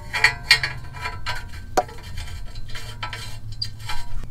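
New oxygen sensor being screwed by hand into the threaded bung of a steel exhaust pipe: a run of irregular light metallic clinks and scrapes, with a short ring on some of them.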